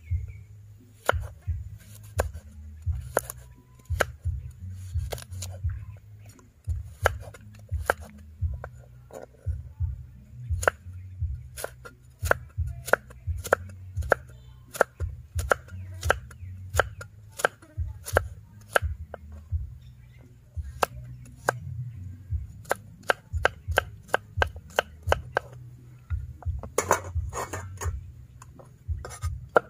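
Steel cleaver chopping carrot on a thick round wooden chopping block, a sharp knock at each stroke. The chops are unevenly spaced, about one or two a second.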